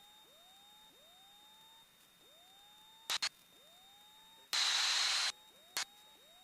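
Quiet aviation headset intercom feed with no engine sound, only a faint steady high whine and faint rising chirps about once a second. A couple of sharp clicks come about three seconds in, then a short burst of hiss about a second later, as the intercom's voice-activated squelch briefly opens on mic noise.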